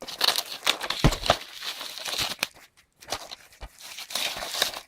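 Plastic shrink-wrap being torn and peeled off a Blu-ray steelbook case: a crinkling rustle with sharp crackles, with a short lull a little past halfway.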